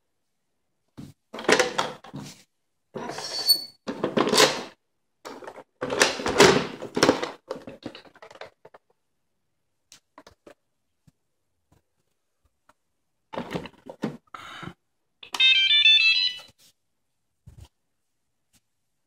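Rustling and plastic clattering as a cleaning pad is handled and fitted to an iRobot Braava mopping robot, in irregular bursts. About two-thirds of the way through, the robot plays a short electronic tune of stepped beeps.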